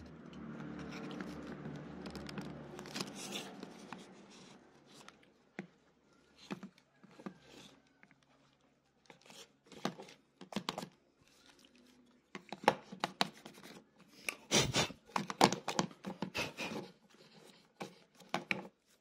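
Worn faux-leather ear pad being peeled and pried off a Sony MDR-XB950B1 headphone ear cup, rubbing and crinkling against the cup. A run of sharp clicks and crackles grows busier in the last several seconds as the pad's rim comes free.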